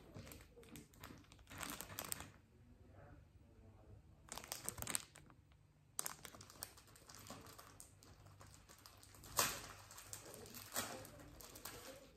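Plastic balloon packaging and a folded foil Mylar balloon crinkling as they are handled and the bag is opened, in several separate bursts, the sharpest crackle about nine seconds in.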